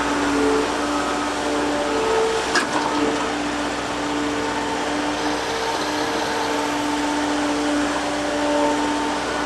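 Liebherr R930 G8 crawler excavator running at work: a steady engine and hydraulic drone with a whine, and a sharp click about two and a half seconds in.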